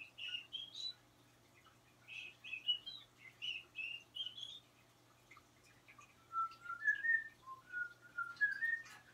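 Short, high whistled notes in little rising runs, then after a pause a lower, sliding whistled phrase in the last few seconds: a man whistling to a pet cockatiel to coax it into whistling back.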